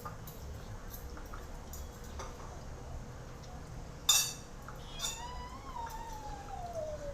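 A sharp clink about four seconds in, then one long animal call that slides down in pitch over about two and a half seconds.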